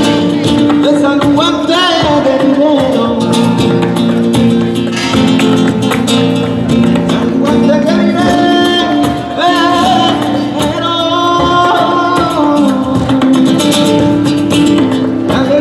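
Flamenco music: a voice singing long, wavering, ornamented lines over acoustic guitar.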